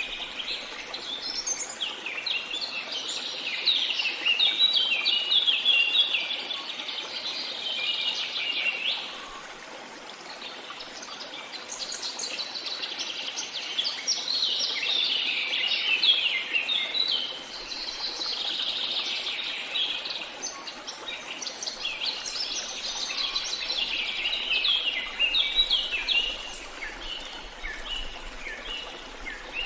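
Birdsong: several birds chirping and trilling in dense, overlapping quick phrases, with a short lull about nine seconds in. A faint steady rush of running water sits underneath.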